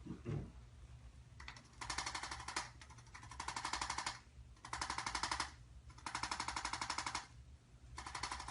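A handheld percussive chiropractic instrument firing rapid taps in bursts of about a second, roughly five bursts with short pauses between. It is working the tight muscles that insert at the base of the skull, to loosen them.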